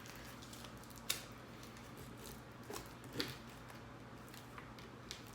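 Faint clicks and crinkles of tight plastic shrink-wrap on a card deck being picked and torn open: a sharp tick about a second in and a few crackles around three seconds.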